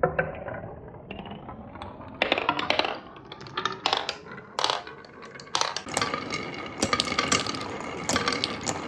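Glass marbles rolling and clattering down a wooden marble run. Rolling noise with many sharp clicks as marbles knock on the wooden track pieces, growing denser and more continuous from about halfway through.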